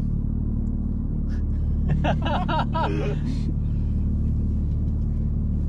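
Car driving at a steady speed: a constant low engine and road drone with no change in pitch, with a short stretch of a voice about two seconds in.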